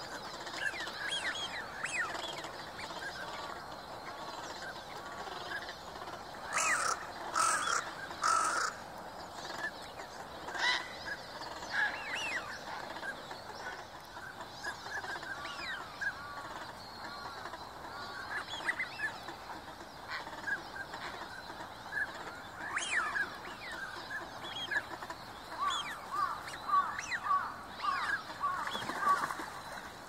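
A flock of ducks and gulls calling on a pond: a steady chatter of many short whistled calls, with a few louder, harsher calls about seven to nine seconds in.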